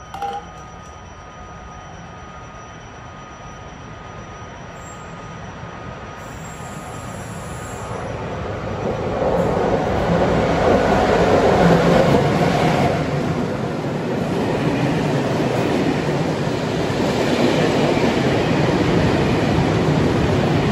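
A freight train approaching and passing close by. Its noise grows steadily louder over the first half, then the wagons keep up a loud, continuous rumble as they roll past.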